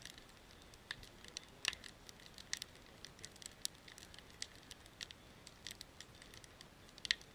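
Wood campfire crackling: faint, irregular sharp pops and snaps, a few a second, with a louder pop near the end.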